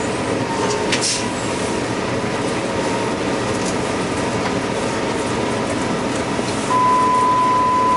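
Cabin noise inside a New Flyer C40LF CNG low-floor bus riding, with the engine and drivetrain running under a steady rumble and the odd rattle. Near the end a steady high beep sounds for about a second and a half.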